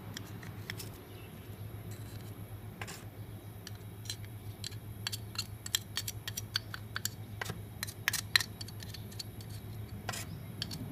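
Scattered light metallic clicks and taps as the scooter's final-drive gear case cover and its bearings are handled. The clicks come thicker in the second half, over a steady low hum.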